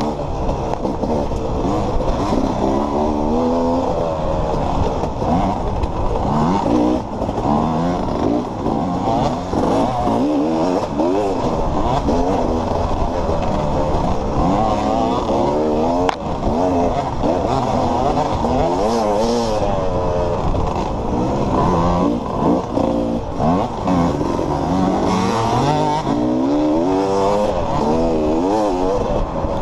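Dirt bike engine heard up close from the rider's own machine, revving up and falling back over and over as the rider accelerates, shifts and slows, with a sharp click about sixteen seconds in.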